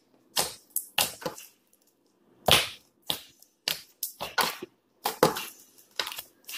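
Homemade glue slime being squeezed and pulled apart by hand: a string of irregular short wet squelches and pops, the loudest about two and a half seconds in.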